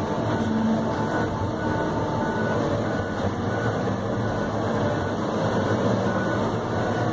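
New Holland RG140B motor grader's diesel engine running steadily, heard from inside the cab as the machine travels along a dirt road.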